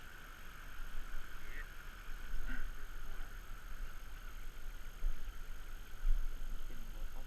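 Steady rushing of stream water, with uneven low rumbling on the microphone and two faint short chirps in the first few seconds.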